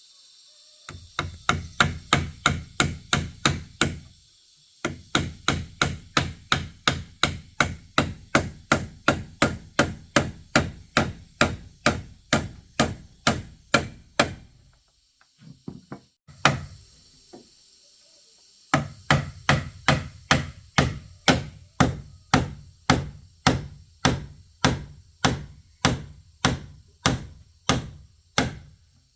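Hand tool striking wood in quick, even blows, about three a second, in long runs with a pause in the middle.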